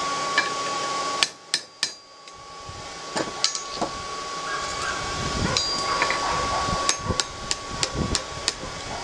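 Hand hammer striking the hot jaw of a pair of blacksmith's tongs on the anvil to bend the jaw outward, each blow a sharp ringing clink. The strikes come in irregular groups: three about a second in, a few more around three seconds, then a quicker run of blows over the last few seconds.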